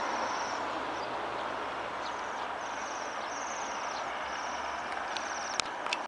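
A flock of birds calling from a bare birch tree: repeated high, thin trills, over steady background noise. A sharp bump near the end.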